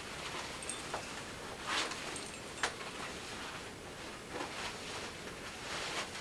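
Fabric and leather rustling as the liner's sleeves are pulled through the arms of a leather race suit: soft, scattered swishes and brushes of cloth.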